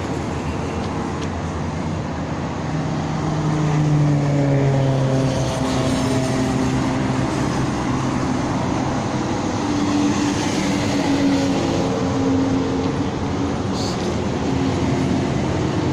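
Steady motor-vehicle noise with engine tones that slide down in pitch about four seconds in and shift again later.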